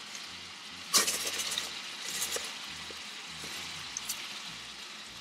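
Ground beef sizzling in a skillet with a steady hiss, with one sharp clack about a second in and a few light clicks of utensils later.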